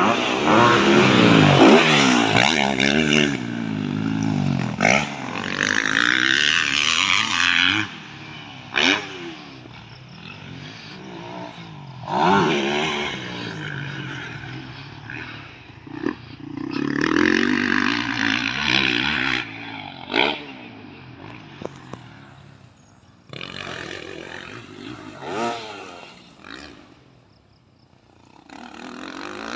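Motocross dirt bike engines revving up and down through the gears as they ride the track. The engine is loudest and closest in the first few seconds, then comes and goes farther off, with a few sharp clacks in between.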